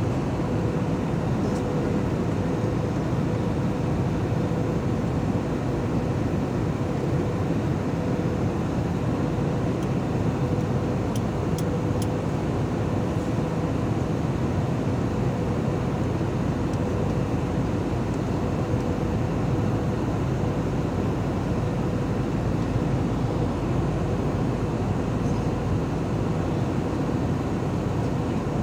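Steady roar of a jet airliner cabin in flight, even throughout, with a faint constant tone running under it.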